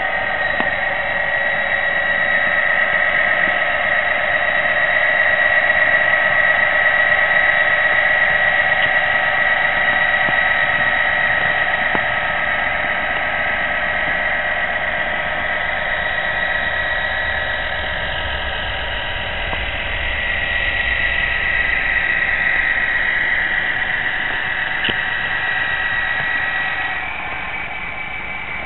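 OO gauge model train running along the track: a steady high whine over a light rolling rumble. The whine stops and the sound drops a little near the end.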